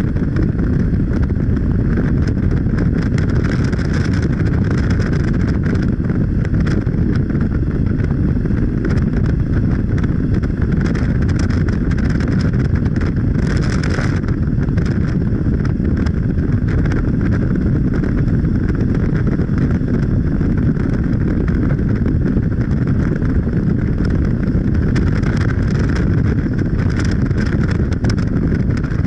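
Steady low rumble of a vehicle in motion, with a brief hiss about halfway through.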